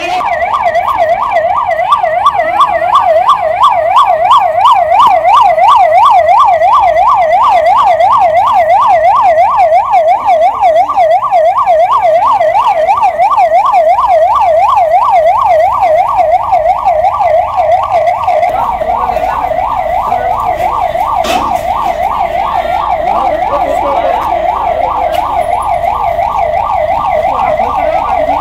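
Ambulance siren in a fast yelp, its pitch sweeping up and down about four times a second, loud and unbroken. A single short knock sounds about three quarters of the way through.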